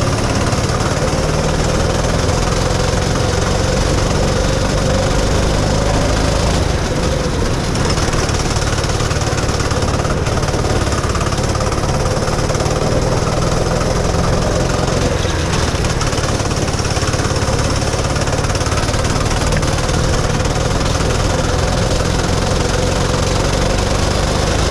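Rental go-kart engine running hard and steady at racing speed, heard close up from a helmet-mounted camera on the driver, with a constant drone.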